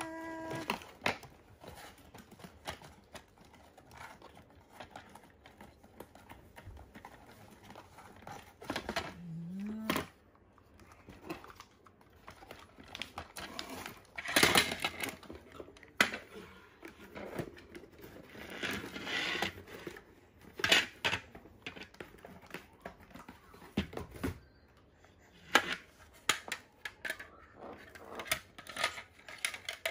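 Cardboard and plastic toy packaging being unpacked by hand: rustling, crinkling and tearing, with scattered clicks and knocks of plastic parts. The loudest bursts come about halfway through.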